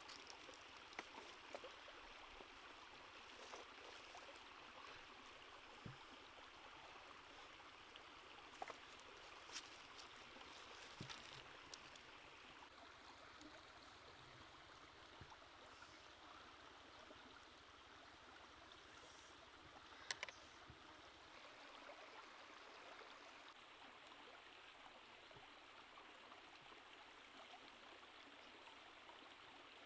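Faint, steady rush of a shallow stream running over rocks, with a few scattered light clicks, the loudest about twenty seconds in.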